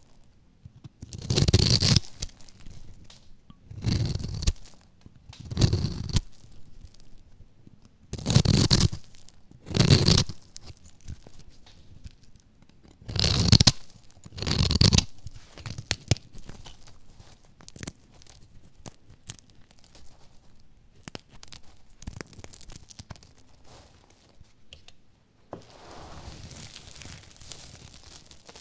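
Knife blade slicing cubes off a bar of crunchy dry soap that has been scored into a grid, each stroke a loud crisp crunch, seven strokes in the first half. After that come small faint crackles of soap crumbling, and near the end a soft rustle of hands sifting through a pile of soap pieces.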